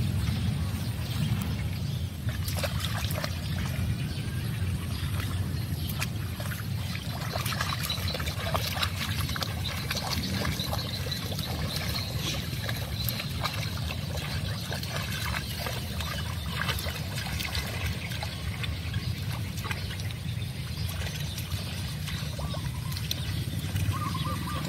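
Dogs wading through shallow canal water, splashing and sloshing in irregular bursts over a steady low rumble.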